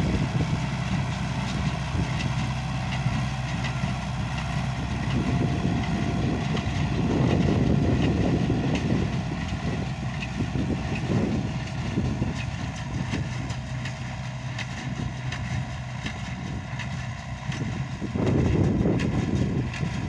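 Marshall 702 tractor's diesel engine running steadily as it pulls a small square baler through the hay, with faint repeated clatter from the baler working.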